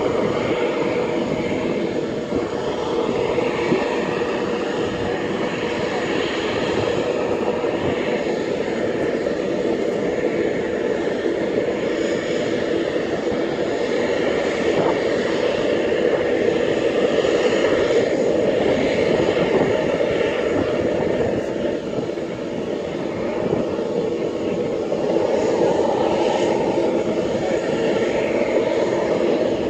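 Aircraft engines running steadily: a continuous hum and rush, with a slight dip in loudness about two-thirds of the way through.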